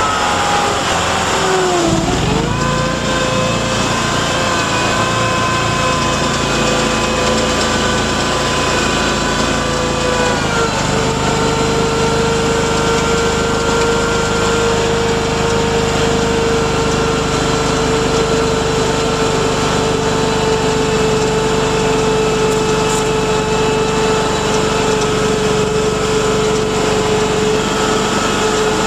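Mudd-Ox 8x8 amphibious ATV on Adair tracks, heard from on board, running under way with a steady whining drone from engine and drivetrain. The pitch sags about a second in and climbs back at about two seconds, shifts slightly near ten seconds, then holds steady.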